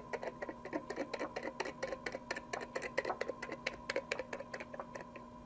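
Push pin piercing heavy-duty aluminium foil stretched over a hookah bowl: a quick run of small ticks, several a second, thinning out near the end.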